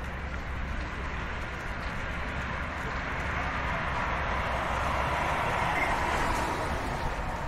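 Road traffic going by: a steady rush of vehicle noise over a low rumble, swelling louder around the middle as a vehicle passes and easing off near the end.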